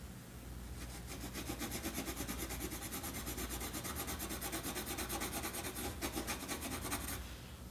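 Coloured pencil shading on paper: quick, even back-and-forth scratching strokes that start about a second in and stop about seven seconds in.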